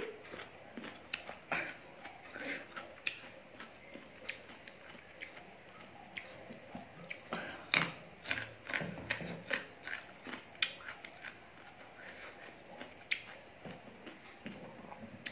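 Close-miked chewing and mouth sounds of a person eating rice and curry by hand: an irregular string of short clicks and smacks.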